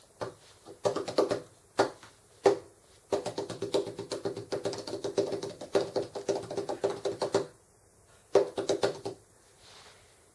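Rapid tapping strikes on a hard, resonant surface, each ringing briefly at the same pitch. A few single taps come first, then a fast run lasting about four seconds, a pause, and a short flurry near the end.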